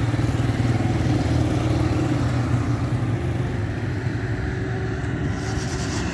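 PIA ATR turboprop airliner's engines running as it taxis to the terminal after landing: a steady low drone, with a brief rise in hiss near the end.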